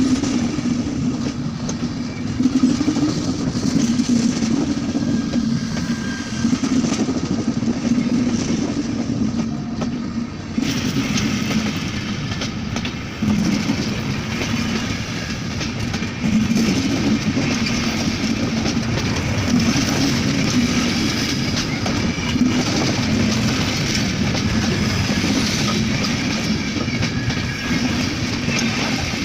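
Indian Railways train running along the track with a steady rumble of wheels on rails, the noise growing brighter about ten seconds in.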